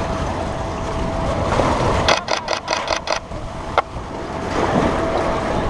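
A camera shutter firing a rapid burst of about seven frames in about a second, then one more single shot, over steady outdoor background noise.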